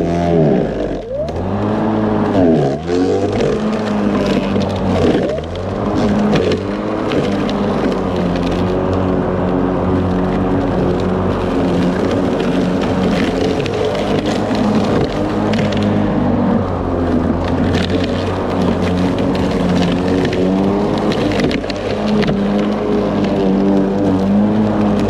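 Ryobi 40V brushless electric lawn mower running under heavy load, its blade hum dropping sharply in pitch and recovering several times in the first few seconds as it bogs in thick growth, then holding steady. Scattered clicks sound through it.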